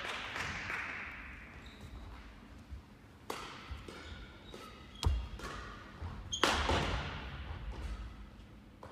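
Badminton rackets hitting shuttlecocks, three sharp hits a second or two apart, echoing around a large sports hall.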